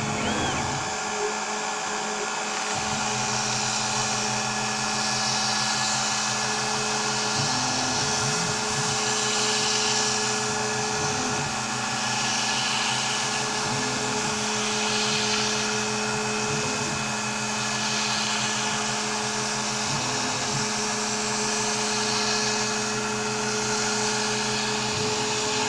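Onefinity CNC router spindle whining steadily while cutting foam board, with a shop vac running on the dust shoe. The cutting hiss swells and fades every couple of seconds as the bit works along the letters.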